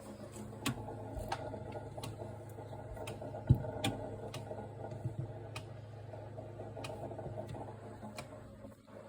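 Samsung RT32 refrigerator compressor running with a steady hum and a regular ticking, about one and a half ticks a second, with one louder knock about three and a half seconds in. This is the abnormal noise it makes after being repaired.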